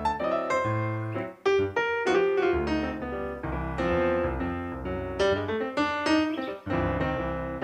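Background solo piano music: a melody of single notes over lower notes and chords.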